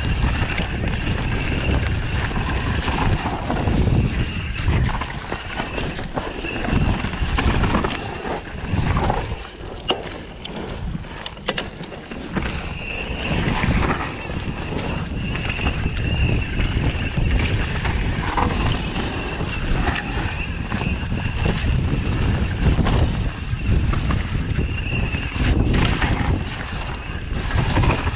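Wind buffeting the camera microphone and the knobby tyres of a Propain Tyee full-suspension mountain bike rolling fast down a dry dirt trail, with clicks and rattles over bumps. A high whir comes and goes throughout.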